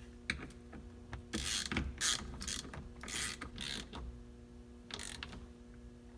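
Ratchet wrench clicking in a series of short back-and-forth strokes as the steering-wheel retaining bolt is run down onto the steering shaft.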